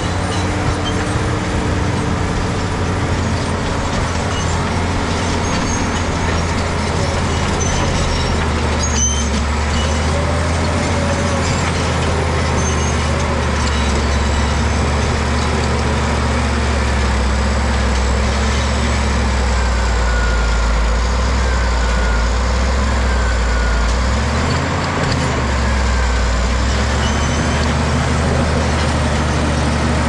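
Caterpillar D7G crawler bulldozer's six-cylinder diesel engine running hard as the dozer shoves a pile of loose rock with its blade, steel tracks clanking and rock grinding. The engine note sags briefly once, late on, and picks up again.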